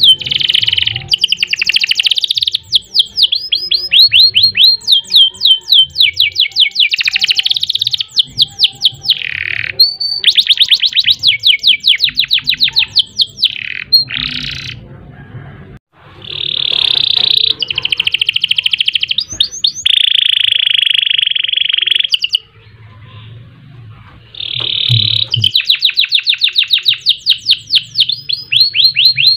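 Canary singing a long, loud song of fast trills and rolling runs of repeated high notes. It pauses briefly about halfway through and again about three-quarters of the way in.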